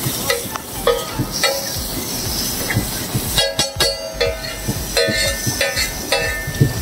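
Steel spatula clanking and scraping on a large iron tawa as aloo tikki and tomato are chopped and mashed, with a quick run of rapid chopping taps a little past halfway; some strikes leave the griddle ringing.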